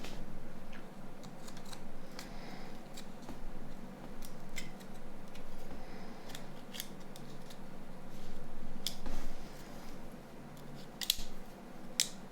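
Irregular small clicks and light taps of plastic phone parts and tools being handled while a Nokia C3-00 is taken apart, with two sharper clicks near the end.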